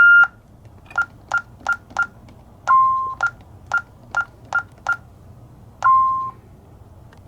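Vista 20P alarm system keypad beeping: one loud beep, then short beeps about three a second in a group of four and a group of five, each group followed by a longer, lower tone.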